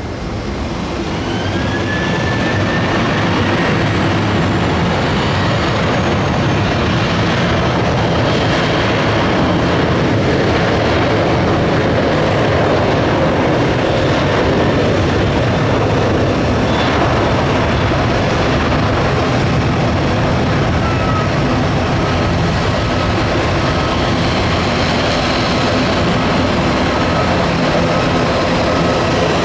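Jet airliner engines at high thrust, heard across the airfield: a loud, steady rushing noise that swells over the first two seconds and then holds, with a faint rising whine near the start.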